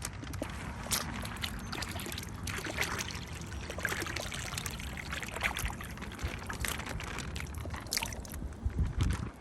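Pond water sloshing and trickling with small splashes and crackles as the channel catfish are let go into the pond, with a few low thumps near the end.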